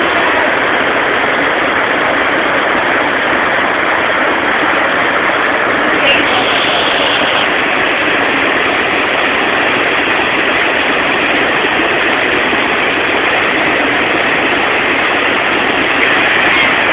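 Loud, steady rush of river water pouring over a weir, with a brief brighter hiss of splashing about six seconds in.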